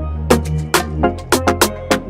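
Background music track with a steady drum beat and bass, in an Afrobeat style.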